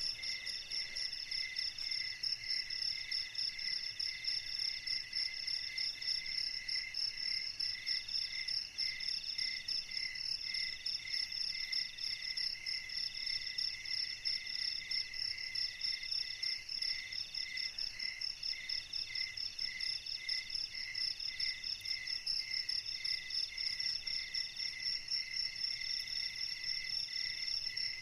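Night insects, crickets among them, chirping together in a steady chorus. There is a high continuous trill, a lower chirp pulsing about twice a second, and another caller repeating phrases of about a second with short gaps.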